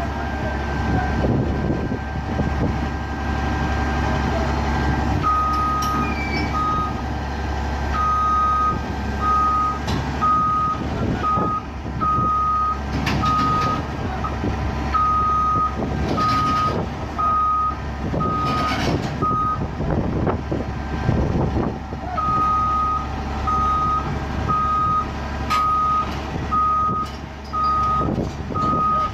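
Heavy-equipment backup alarm beeping in a steady repeating pattern over a running diesel engine, falling silent for a few seconds at the start and again about two-thirds of the way in. A few sharp clanks of machinery are heard around the middle.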